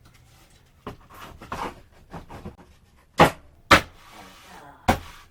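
A wooden board being knocked and slid into place in a shelf: a few light knocks and rustles, then three loud sharp knocks in the second half, with a scraping slide between the last two.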